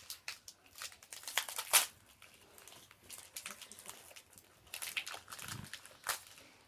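Foil wrapper of a Pokémon card booster pack being torn open and crinkled by hand, in irregular rustling bursts, the loudest a little under two seconds in.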